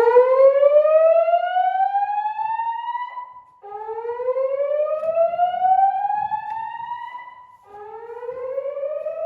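Fire alarm voice-evacuation speakers sounding the slow whoop evacuation tone: three rising sweeps, each climbing steadily in pitch for about three and a half seconds before restarting low, the third one fainter.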